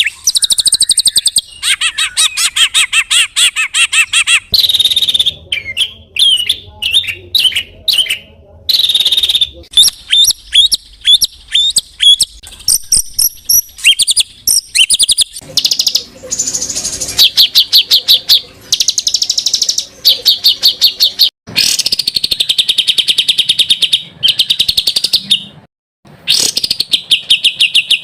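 Loud songbird song: rapid high trills, chattering rattles and sharp chirps, delivered in quick phrases one after another with brief pauses between them.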